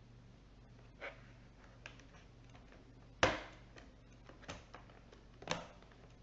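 Plastic laptop bottom cover being handled and pressed into place: about five sharp clicks and knocks, the loudest a little past the middle.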